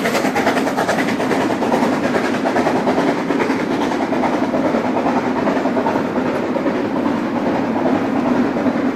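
Passenger coaches of a Harz narrow-gauge steam train rolling past, their wheels clattering steadily over the rails, with the steam locomotive's rapid exhaust beats working uphill ahead of them.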